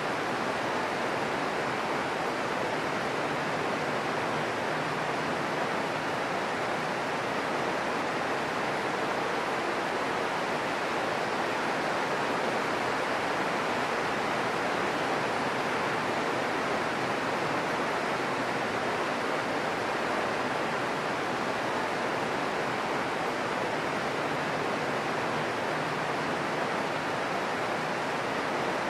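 Steady rain, a constant even hiss that does not change.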